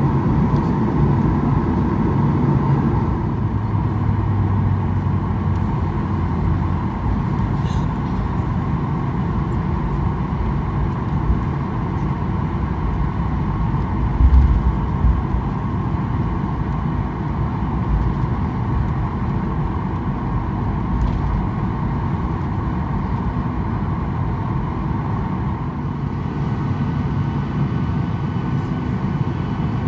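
Cabin noise of a Boeing 737-800 taxiing after landing: a steady hum and rumble from its CFM56-7B engines at idle thrust, with one low thump about halfway through.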